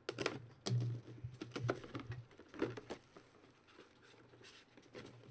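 Plastic shrink wrap crackling and tearing as it is pulled off a cardboard box, in quick irregular crackles for the first few seconds, then quieter rustling as the cardboard flaps are opened.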